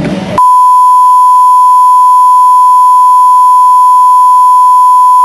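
Loud, steady 1 kHz sine test tone, the reference tone that goes with colour bars. It starts abruptly about half a second in, where rock music cuts off.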